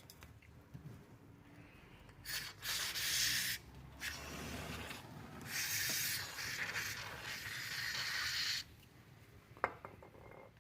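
Two bursts of steady hiss while the ignition lock cylinder's parts are being cleaned: the first lasts about a second, the second about four seconds and grows louder partway through.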